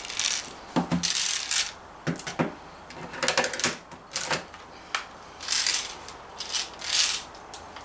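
Daisy Model 340 spring-piston BB pistol being handled and cocked between shots: a string of short mechanical clicks, scrapes and rattles from the slide and mechanism, about nine of them spread irregularly.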